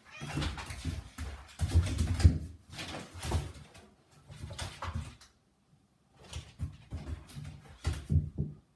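A Nova Scotia duck tolling retriever and a cat play-fighting on a wooden floor: irregular thumps, bumps and scrabbling paws in bursts, with a short lull about six seconds in.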